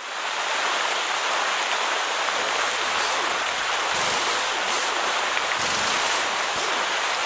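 Steady rushing of water, a sound effect for a large tank filling up. It fades in at the start and cuts off near the end.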